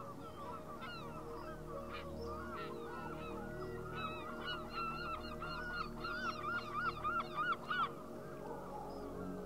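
A flock of greater flamingos honking with goose-like calls, scattered at first. About four seconds in they quicken into a loud run of about three calls a second, which stops near the end. A soft sustained music bed runs underneath.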